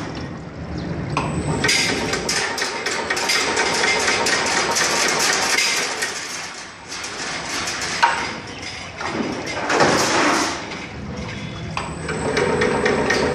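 Automatic wire straightening and cutting machine running, with a dense, continuous metallic clatter and rattle. A single sharp knock comes about eight seconds in.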